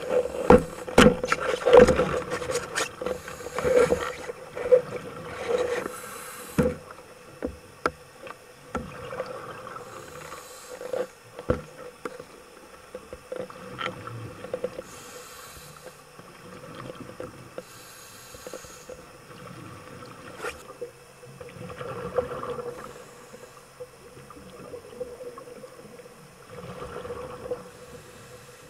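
Underwater sound: a steady hum under many sharp clicks and knocks, most of them in the first few seconds, with hiss and bubbling from a diver's breathing gear every few seconds.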